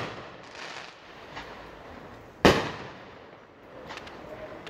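Aerial fireworks shells bursting: one loud bang about halfway through that echoes away, with faint pops and crackles between bursts.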